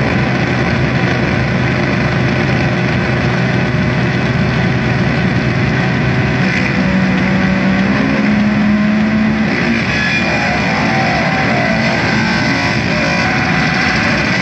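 Loud noise music played through amplifiers: a dense, distorted wall of hum and hiss with a low held tone that jumps higher about six seconds in, the texture shifting again near ten seconds.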